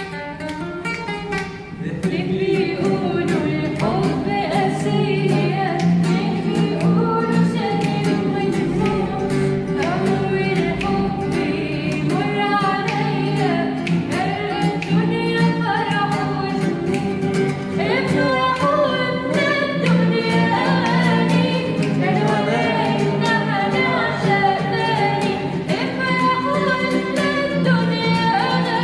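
Acoustic guitar playing, joined about two seconds in by a voice singing a melodic Arabic song over the guitar.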